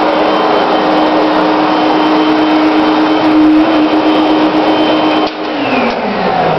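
Vacuum cleaner motor running steadily with a whine, blowing air through a home-made air tunnel. About five seconds in it is switched off, and the whine falls in pitch as the motor spins down.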